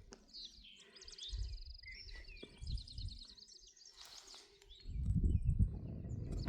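A songbird singing several high, rapid trilled phrases, fairly faint. Near the end, louder low thumps come in.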